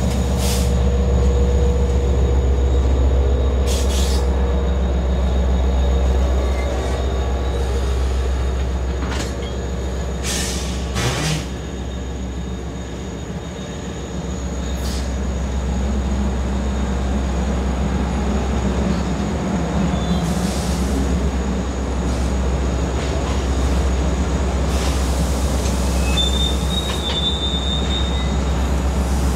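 Long Island Rail Road diesel train at close range, its engine giving a strong steady low rumble, with a few sharp knocks along the way and a brief high squeal near the end.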